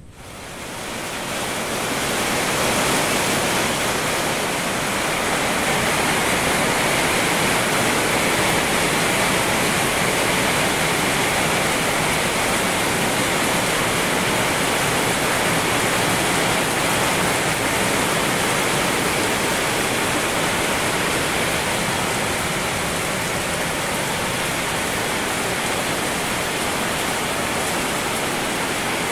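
Heavy rain falling, a steady even hiss that fades in over the first two seconds and then holds.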